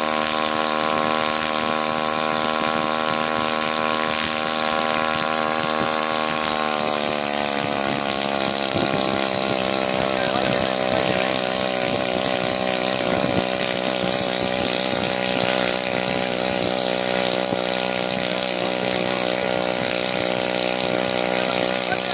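Homebuilt ultralight helicopter's engine running steadily during a main-rotor test run. About seven seconds in its pitch drops a little, and it then runs on at a lower, slightly wavering speed.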